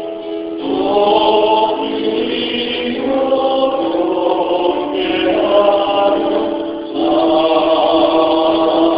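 A congregation singing a slow hymn over a held accompanying note, the melody moving to a new phrase every two seconds or so.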